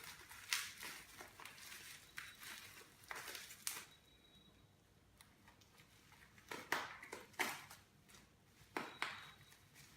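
Packaging being handled and unwrapped, crinkling and rustling in short bursts with quiet gaps between.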